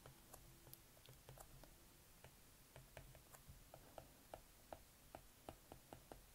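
Faint clicks of a stylus tip tapping on a tablet's glass screen during handwriting. A few light taps come first, then about three a second from about three seconds in.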